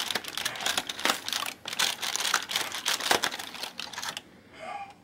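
Thin foil wrapper crinkling in quick, irregular crackles as it is peeled off a small chocolate, stopping about four seconds in.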